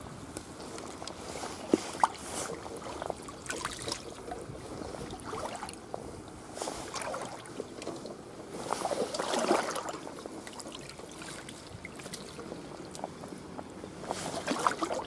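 Shallow stream water splashing and sloshing irregularly as someone wades and works a dip net through it, with a couple of sharp knocks early on. There is a louder stretch of splashing about nine seconds in, and another near the end.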